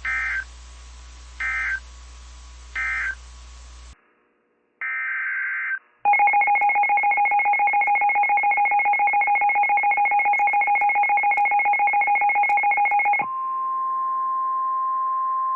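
Emergency Alert System tones. Three short warbling bursts of digital header data sound over a low hum, and another burst comes near 5 s. A rapidly pulsing two-tone attention signal then runs for about seven seconds and gives way to a steady single-pitched weather-radio alert tone, which signals that a new warning is about to be read.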